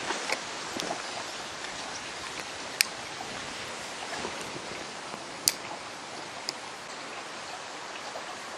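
Steady outdoor hiss with a few short, sharp ticks, the loudest about three seconds in and again about five and a half seconds in.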